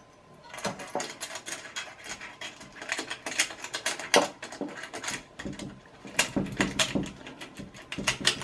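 Small T-bolts and a limit-switch housing being worked by hand into the channel of an aluminium extrusion: a run of irregular small clicks, taps and scrapes that starts about half a second in.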